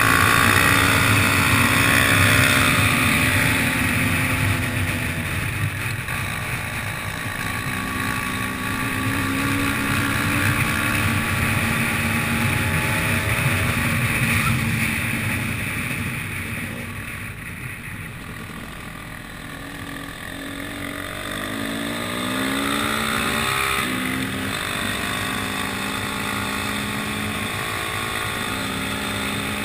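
Enduro dirt bike engines running under way, heard from the rider's own bike, the engine note rising and falling with throttle changes. The sound drops to a quieter stretch about halfway through, then the revs rise in several quick climbs.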